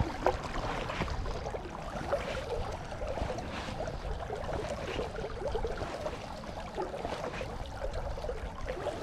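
River water flowing, with wind buffeting the microphone.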